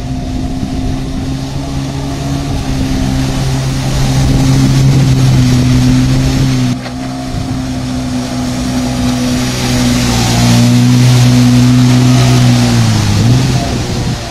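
Jet ski engine running at speed, a steady motor tone under the rushing hiss of its water spray, with an abrupt jump in the sound about seven seconds in. A second before the end the engine note drops as it throttles back.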